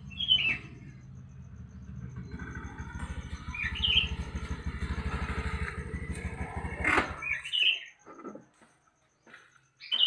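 Sooty-headed bulbul giving short, falling chirps, about four times, over the low, fast throb of a running engine that stops about seven and a half seconds in.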